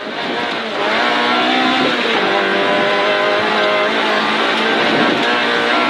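Peugeot 206 rally car's four-cylinder engine heard from inside the cabin, pulling hard at high revs; its pitch climbs over the first couple of seconds, then holds steady.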